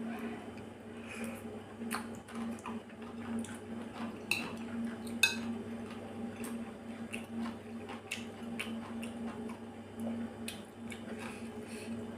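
Metal chopsticks clicking and scraping against a ceramic bowl as food is picked up, with mouth sounds of chewing between the clicks. The sharpest click comes about five seconds in, over a steady low hum.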